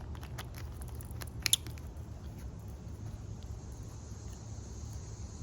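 A person biting and chewing food close to the microphone, with a few crisp clicks in the first two seconds, the loudest about a second and a half in, over a steady low rumble.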